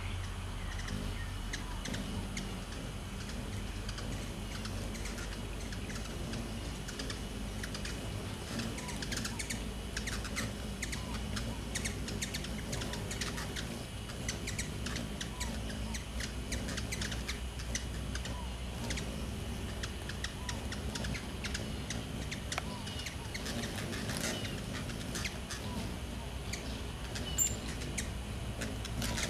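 Hummingbirds calling at a nectar feeder: many quick, sharp chip notes and short twitters, coming thickest from about eight seconds in, over a low steady hum.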